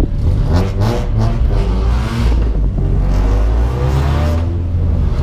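Supercharged Honda K20 four-cylinder engine, heard from inside the Civic's cabin, revving up as the car accelerates. The pitch climbs, drops once about two seconds in as a gear is changed, then climbs again.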